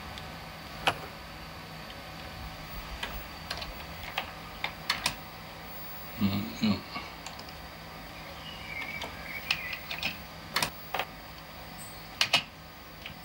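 Keystrokes on a Commodore 64's mechanical keyboard: irregular clicking keypresses in short runs with pauses between, as a short BASIC program is typed in.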